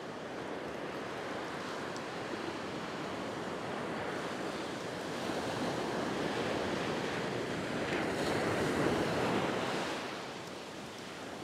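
Ocean surf breaking and washing up the sand, a steady rushing that swells to its loudest about nine seconds in, then eases.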